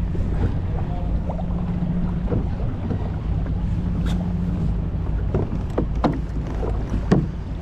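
Steady wind rumble on an action camera's microphone over water sounds around a kayak, with a low hum for the first few seconds and several light clicks and knocks in the second half.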